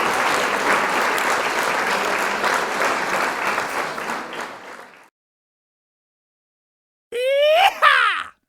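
A dense, steady rush of noise with many small clicks, like applause or crowd noise, fades out over the first five seconds into dead silence. About seven seconds in comes a short swooping sound effect of several pitches sliding up and down, lasting about a second.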